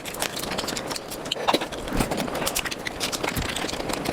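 Close-miked eating of mutton nalli, sped up: fast, irregular wet chewing and smacking clicks.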